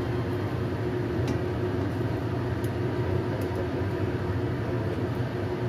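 A steady low drone in the kitchen with a constant hum, while an egg pancake fries in a pan. A few faint light clicks, from the spatula against the pan, come through it.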